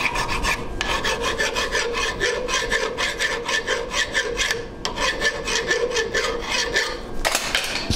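Flat hand file rasping over the teeth of a machined metal sector gear held in a vise, in quick, even back-and-forth strokes, shaping the gear teeth.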